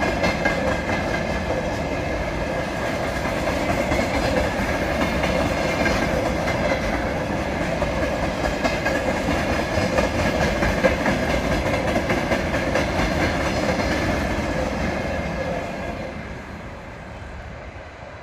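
Freight train of tank wagons rolling over a short concrete railway bridge: a steady rumble and clatter of wheels on the rails, fading away near the end.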